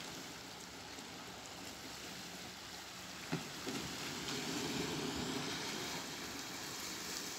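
Steady hiss of small waves washing onto a sand and pebble shore, with a single sharp knock a few seconds in and a short spell of low rumble just after.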